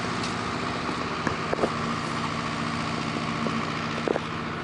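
Steady engine hum of street traffic, with a few short clicks.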